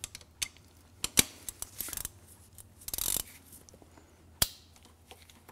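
Scattered light metallic clicks and clinks of hand tools: a 19 mm crow's foot wrench on an extension being handled and fitted at the base of a diesel hand primer pump.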